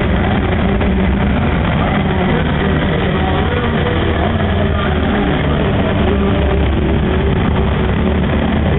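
Several farm tractor engines running at low speed together, a steady mixed drone with no breaks.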